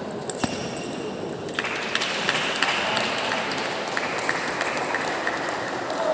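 Table tennis rally: the ball clicks sharply off bats and table in quick, uneven succession over steady hall noise.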